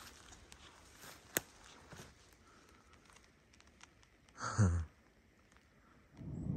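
Faint footsteps and rustling over a mossy forest floor, with a sharp click about a second and a half in and, at about four and a half seconds, a brief sound that drops steeply in pitch. A low rumble sets in just before the end.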